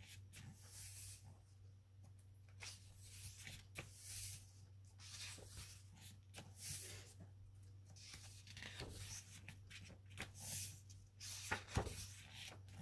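Thick photobook pages being turned and smoothed by hand: a run of soft paper swishes and rustles, one every second or so, over a steady low hum.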